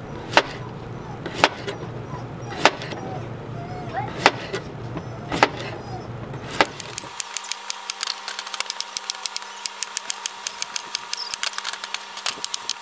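Chef's knife slicing a potato into rounds on a plastic cutting board, a sharp tap about once a second as the blade goes through onto the board. About seven seconds in, the low background drops away and a fast run of light clicks, several a second, takes over.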